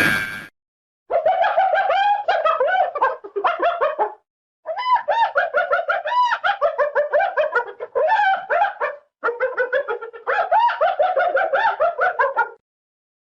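Cartoon bird chatter sound effect: rapid, squeaky, up-and-down chirps in three long runs with short breaks between them.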